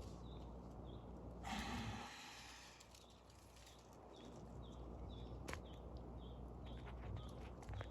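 Close-miked Komodo dragon throat and breathing sounds: a short, loud breathy rush of air about a second and a half in, over a steady low rumble. A faint high chirp repeats about twice a second, and there is a single sharp click about halfway through.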